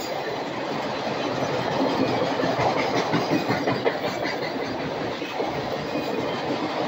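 Freight train of enclosed autorack cars rolling past: steel wheels on the rails make a steady rumble, with clacks as the wheels cross rail joints.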